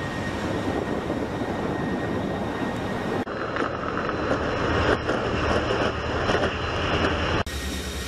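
Military aircraft engines passing overhead in formation, a steady rushing drone. About three seconds in, the sound switches to a different steady noise rush on a warship's deck, and it switches back to the aircraft drone near the end.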